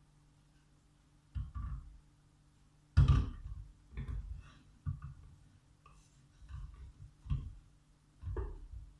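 A series of irregular knocks and clatters of kitchen utensils and dishes being handled, about seven in all, the loudest about three seconds in, over a faint steady hum.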